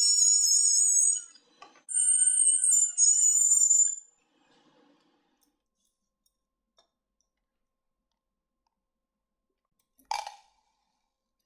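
A small high-speed rotary tool whining at a high pitch in two runs, stopping about a second in and again about four seconds in, its pitch wavering as it works. A single sharp click rings out briefly about ten seconds in.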